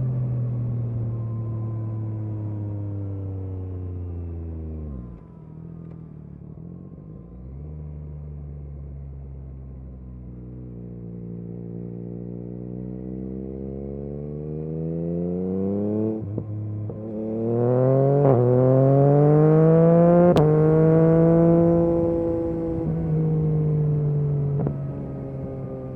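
Yamaha MT-09 SP inline-three engine through an Akrapovic exhaust while riding. The engine note falls as the bike slows for the first few seconds, then rises steadily through the gears with short breaks at the shifts. It is loudest about three quarters of the way through, then eases off.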